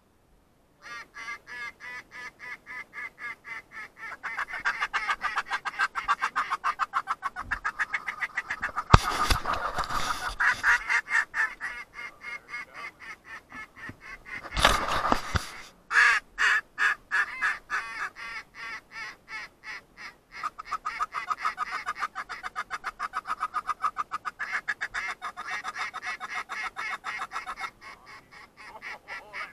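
Waterfowl calling: a long, rapid run of short clucking notes, several a second, going on almost without a break. There is a sharp knock about nine seconds in and a short rush of noise around fifteen seconds.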